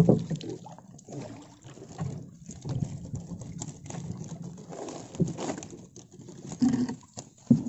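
Water splashing and dripping as a wire-mesh fish trap is hauled out of swamp water into a wooden boat, with a few sharp knocks of the trap against the hull, the loudest at the start and near the end.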